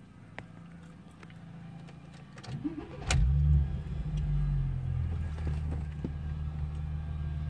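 Audi A6 C5 engine being started: a short cranking sound, then it catches about three seconds in. It runs loudest for the first half second, then settles into a steady idle.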